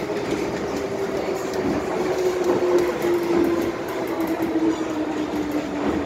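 Hong Kong MTR M-Train electric multiple unit slowing as it pulls into a station. Its traction motors whine, the pitch dropping steadily, over the rumble and clatter of the wheels on the rails.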